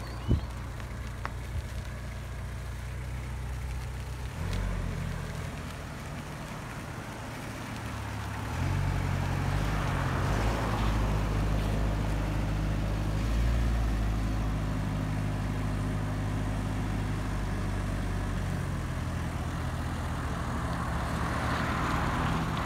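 Diesel engine of a 4WD Toyota Camroad Champ motorhome running under load as it drives and climbs a grassy slope, getting louder and working harder from about eight seconds in. A single sharp knock just after the start.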